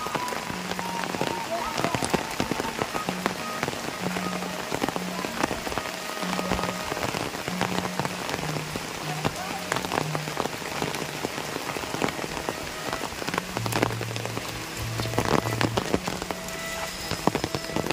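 Steady rain falling on banana leaves, thatched roofs and a wet stone path, with many single drops ticking close by. Quiet low held notes of background music sit underneath.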